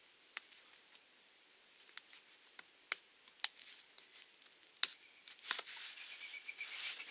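A thin metal blade clicking and scraping against a small plastic drill trigger-switch box as it pries the lid off, a series of sharp little clicks with the loudest snap about five seconds in, then rustling handling near the end.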